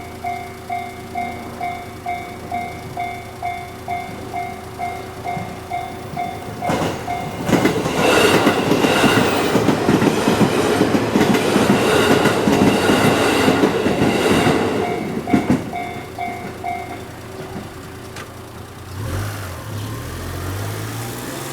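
Japanese railway level-crossing warning bell dinging about twice a second. An electric train then passes over the crossing with wheels clattering on the rail joints for about eight seconds. The bell is heard again briefly after the train and then stops, and near the end a road vehicle's engine pulls away.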